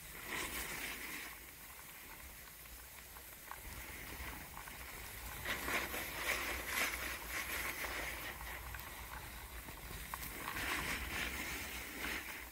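Snowboard sliding and scraping over packed snow, the hiss of the board swelling three times as it turns, over a steady low rumble.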